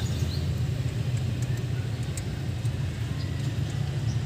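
A steady low drone of a running motor, with a few faint light clicks.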